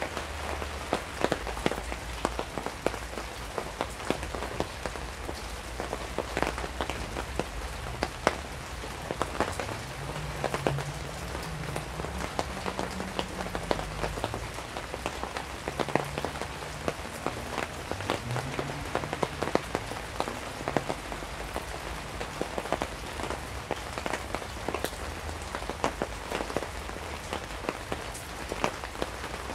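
Steady rain drumming on a tarp overhead, with many individual drops ticking sharply against it. A faint low wavering tone comes and goes in the middle.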